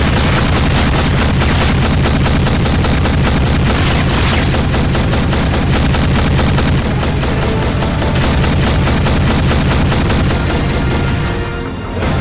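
Sustained rapid gunfire from an AA-12 fully automatic shotgun over a film score, with heavy booms among the shots. The firing eases off near the end.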